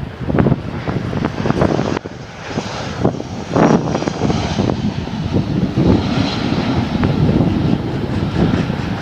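Jet airliner's engines running on landing approach, a loud uneven rumble, with gusty crosswind buffeting the microphone.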